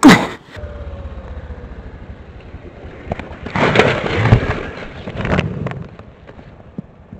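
Motorcycle engine running with a low, pulsing rumble, after a loud burst at the very start. About three and a half seconds in comes a couple of seconds of clattering and scraping as the motorcycle goes over onto its side.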